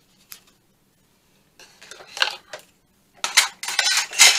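A cork-backed metal ruler and paper scraps being handled on a cutting mat: light clatters and rustling in short bursts, the loudest run coming near the end.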